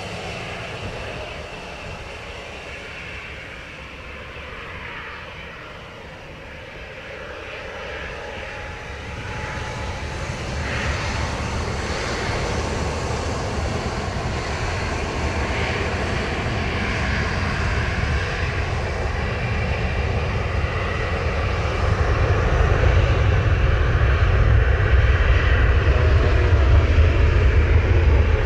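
Airbus A320's twin jet engines running at low power as it taxis onto the runway, then spooling up to takeoff thrust: the sound grows louder from about ten seconds in, and a deep rumble builds strongly in the last few seconds as the takeoff roll begins.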